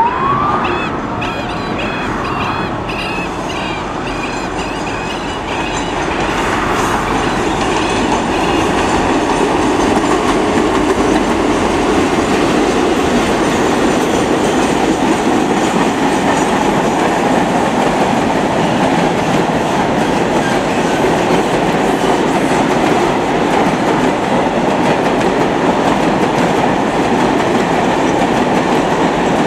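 Freight train of empty flatcars rolling past behind a diesel locomotive. The steady rail noise with clicking of wheels over the track grows louder about six seconds in as the train draws close, then holds.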